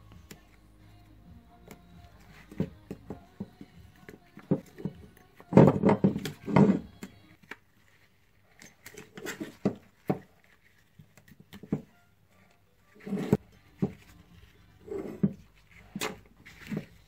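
Small screwdriver picking and scraping in a motorcycle brake caliper's piston bores, prying out the old rubber seals, with irregular clicks and knocks as the metal caliper and tools are handled and the seals are set down on a metal bench.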